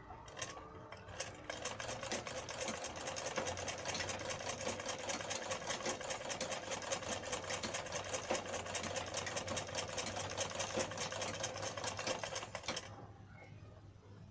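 Domestic sewing machine running steadily in a fast, even stitching rhythm as it sews a fall onto a mekhela. It starts about a second in and stops shortly before the end.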